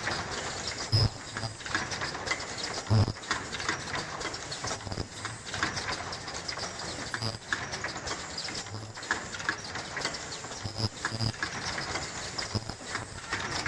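Automatic face mask production line running: a steady mechanical clatter with repeated low knocks at uneven intervals, the heaviest about one and three seconds in.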